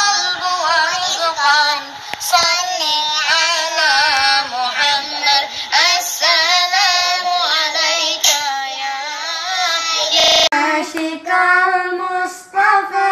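A child's voice singing a sholawat, an Arabic devotional song in praise of the Prophet, with long held, ornamented notes. About ten seconds in there is a brief burst of noise at a cut, and the singing carries on.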